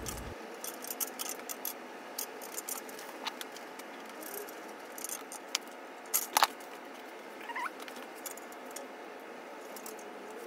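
Sped-up fender fitting on an electric bike: scattered quick clicks, taps and light metallic rattles of parts and tools, with a louder clatter about six seconds in.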